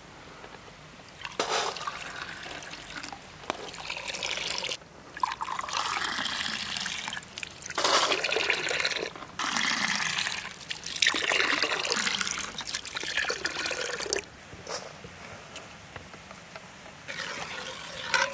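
Water poured from a drinking glass into a metal pot of sugar, glassful after glassful. Several splashing gushes come with short breaks between them as the glass is refilled.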